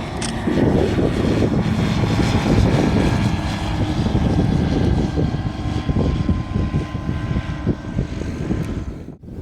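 Light single-engine propeller aircraft running steadily, a dense low rumble with a faint steady whine above it. It cuts off abruptly near the end.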